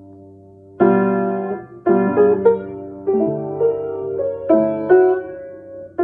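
Piano playing: a held chord fades, then about a second in, loud struck chords and melody notes follow one after another.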